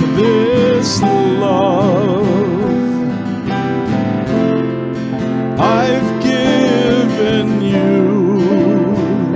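Slow, gentle music: acoustic guitar accompaniment under a sustained melody line held with vibrato, the close of a communion hymn.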